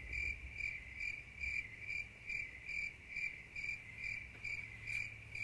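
Cricket chirping sound effect: an even, high chirp repeating a little over twice a second over a low hum, the comic 'crickets' cue for a joke that falls flat.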